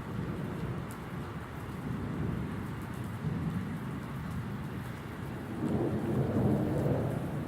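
Thunder rumbling over steady rain; the rumble swells louder about three quarters of the way through.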